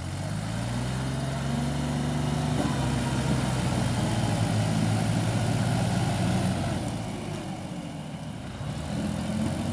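Massey Ferguson 240 tractor's diesel engine revving hard under load, straining to pull a trolley loaded with logs. The engine note eases off about seven seconds in and picks up again near the end.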